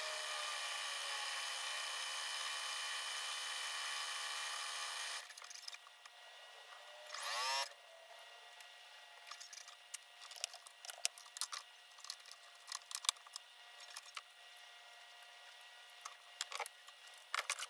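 Pfaff Performance Icon computerized sewing machine stitching steadily, its motor giving an even high whir, sped up with the fast-forwarded video. It cuts off about five seconds in, gives a short rising whir a couple of seconds later, and then there are scattered clicks and taps as the machine and fabric are handled.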